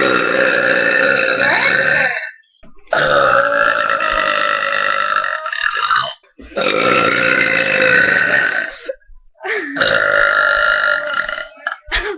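Four long, loud belches from a young woman, each drawn out for two to three seconds, with short gaps between them.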